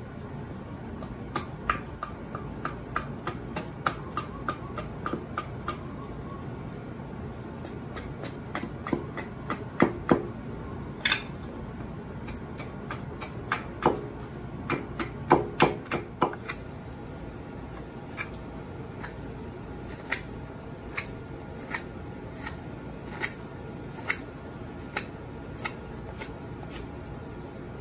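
Carpenter's axe taking light shaping cuts on a pine spoon blank: a series of short, sharp chops, about two a second at first, the hardest strikes in the middle. Near the end come evenly spaced knife cuts into the wood, about one a second.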